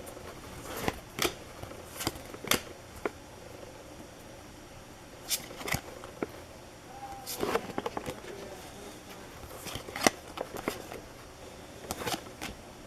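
Baseball trading cards being handled and flipped through, giving a scattered series of sharp clicks and flicks.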